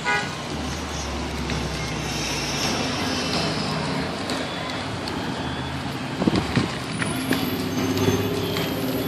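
Fire engine running as it pulls up and stops, a steady low engine hum over outdoor noise, with a few sharp knocks about six seconds in.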